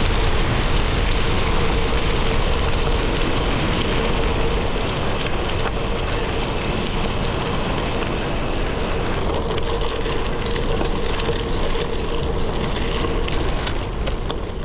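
Gravel bike's Panaracer GravelKing SS 38 mm tyres rolling over a dirt and gravel trail, a dense rumble mixed with wind buffeting the action camera's microphone. A steady hum runs through the first two-thirds, and a few sharp clicks come near the end.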